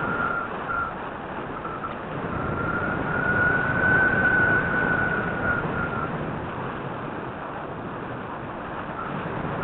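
Airflow rushing over the microphone of a small camera carried on a model aircraft in flight, with a thin high whine that swells louder and slightly higher about a third of the way in, then fades away.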